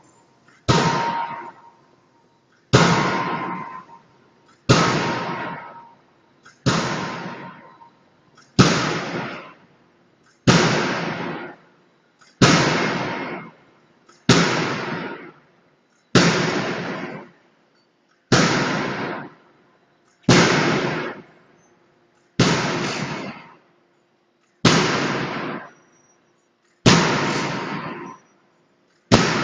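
Anyang 10-ton closed-die forging hammer striking steadily, about one heavy blow every two seconds. Each blow lands suddenly and fades over about a second, with a ringing tone.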